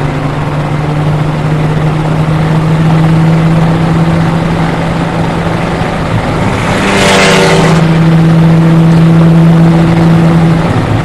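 Porsche Boxster 981 RSR's flat-six engine, heard from onboard, pulling steadily in sixth gear at around 3,000 rpm with its note rising slightly. A brief rushing noise comes about seven seconds in, and the engine eases off near the end.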